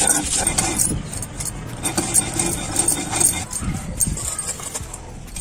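Stone roller grinding dried red chillies and salt on a sil-batta stone slab, gritty stone-on-stone scraping strokes, with bangles on the grinder's wrist jingling as she rolls.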